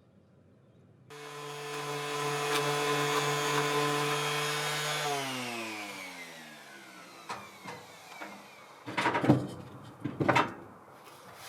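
A small electric power tool's motor starts about a second in, runs at a steady pitch for about four seconds, then is switched off and winds down, its pitch falling as it coasts to a stop. A few light knocks follow, then two loud, short rustling or scraping bursts near the end.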